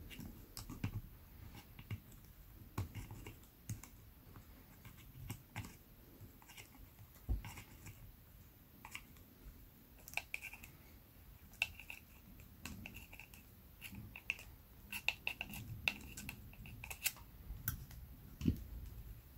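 Irregular small clicks and taps of needle-nose pliers gripping and working the gear and shaft of a cheap plastic spinning reel during disassembly. Through the second half there are brief squeaks of metal scraping on metal.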